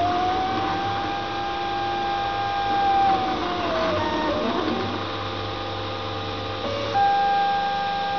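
Stepper motors of a Prusa i3 3D printer whining while it prints a circle. The whine holds a steady pitch, dips and rises again about halfway through, then steps up near the end, over a steady low hum.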